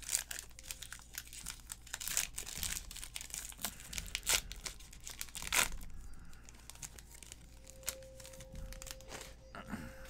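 Plastic foil wrapper of a 2019-20 Panini NBA Hoops trading card pack crinkling and tearing as the pack is ripped open and the cards are slid out, a quick run of crackles and rips that is busiest in the first six seconds and thins out after.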